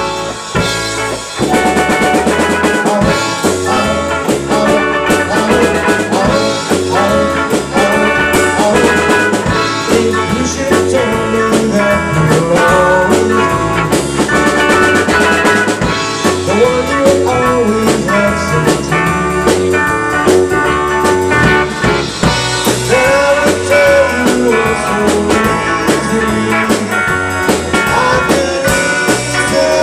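Live rock band playing an instrumental passage: electric guitars, bass guitar and a drum kit keeping a steady beat.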